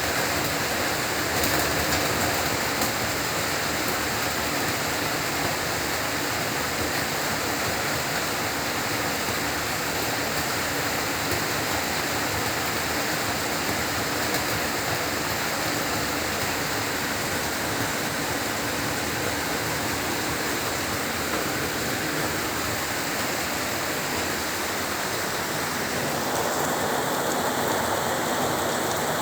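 Heavy rain falling steadily, a dense even hiss of downpour, its texture shifting a little near the end.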